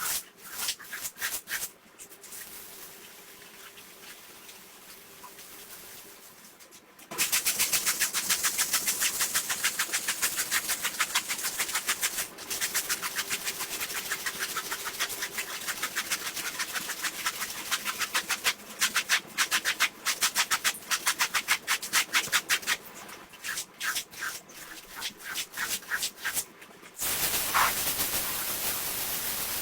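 Carpet being scrubbed with a brush in quick back-and-forth strokes, several a second, with pauses between bouts; near the end a steady hiss takes over.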